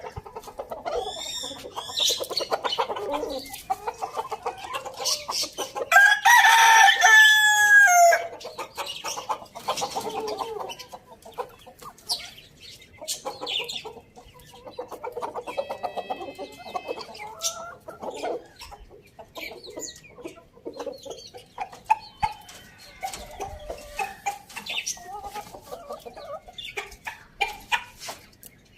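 Chickens clucking, with a rooster crowing once, loudly, about six seconds in; the crow ends on a falling note.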